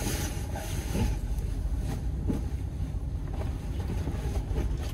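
Steady low rumble of an idling truck engine, with soft rustling of a sleeping bag and bedding being spread out and pulled into place.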